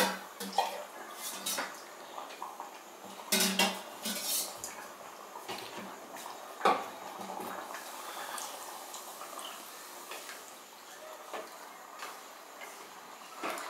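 Wooden spatula stirring rice, dal and vegetables in water in an aluminium pressure cooker, knocking against the pot several times in the first seven seconds, then stirring more softly.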